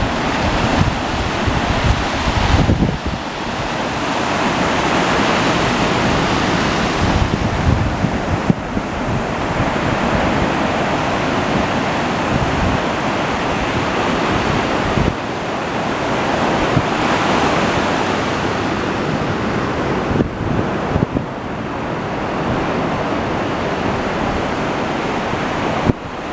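Ocean surf breaking and washing ashore in repeated swells a few seconds apart, with wind buffeting the microphone.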